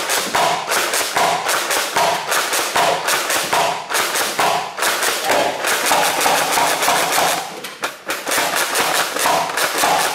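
Nerf Rival Hades pump-action blaster fired rapidly: the pump is racked quickly back and forth, and each stroke gives a plastic clack and a shot, a few times a second, with a brief lull about eight seconds in.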